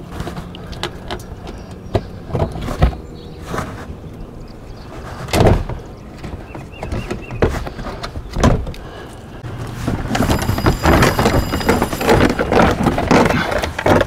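Plastic push clips on a Honda CR-V's wheel-well liner and under cover being pried out with a small screwdriver: scattered clicks and knocks, then from about ten seconds in a denser stretch of plastic rustling and scraping as the cover is pulled back.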